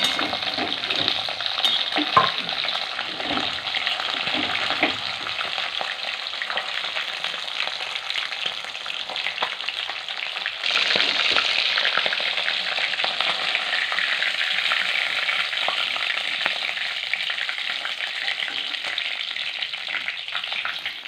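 Pieces of aar catfish frying in hot oil in an aluminium wok, sizzling steadily, with the scrape and tap of a steel spatula turning them. The sizzle grows louder about halfway through.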